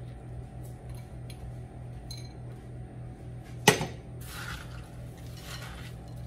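A small glass bowl set down on a ceramic plate with one sharp clink a little past the middle, followed by a spatula stirring and scraping bread-cube stuffing in a glass mixing bowl. A low steady hum runs underneath.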